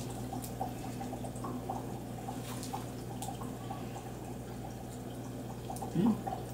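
Faint chewing of a chocolate bar with nougat and peanuts: soft, irregular mouth clicks over a steady electrical hum. A short hummed "mm" comes near the end.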